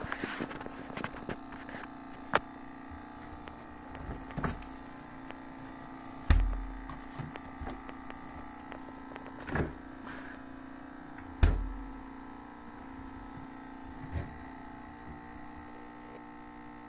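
American Home personal refrigerator running with a steady hum while standing without rubber pads under its feet: the vibration drone (ugong) that the pads are meant to stop. A few short knocks and thumps break in now and then.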